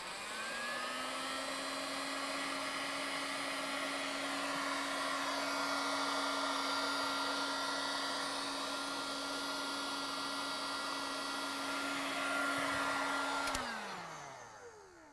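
Heat gun running to shrink heat-shrink sleeves over crimped wire connectors: its fan spins up with a rising whine, then blows steadily with a constant hum and a rush of air. It is switched off about 13 seconds in and the fan winds down with a falling pitch.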